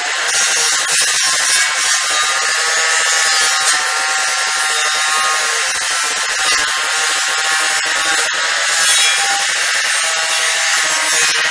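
Corded electric angle grinder grinding on steel angle iron: a loud, steady, high grinding noise over the whine of its motor.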